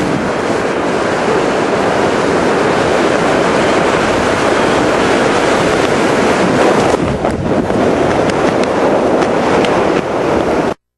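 Loud, steady wind rushing over the microphone during a parachute descent, cutting off suddenly near the end.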